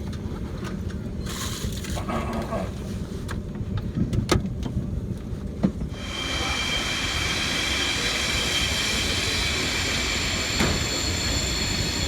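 Belgian passenger train running: a steady low rumble, with a couple of sharp knocks a few seconds in. About halfway through, a steady high-pitched whine of several tones sets in and holds.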